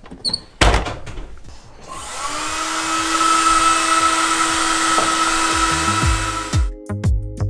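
A contact grill's lid shuts with a thud, then a hand-held hair dryer runs, a steady whine over a rush of air, starting about two seconds in and cutting off suddenly near the end.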